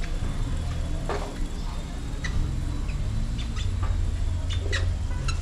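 Market background noise: a steady low rumble with short high chirps and clicks scattered through it.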